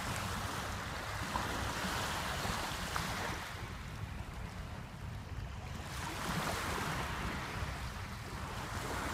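Wind buffeting the microphone: a low rumble under a steady rushing noise that swells and eases every few seconds.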